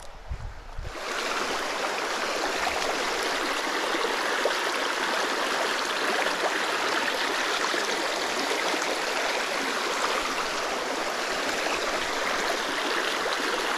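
Mountain stream rushing and splashing over rocks in a shallow riffle, a steady rush of water that comes up about a second in and holds.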